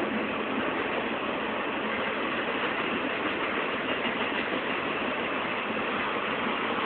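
Freight train rolling past: a steady rumble and rattle of wheels on rail, with no rise or fall.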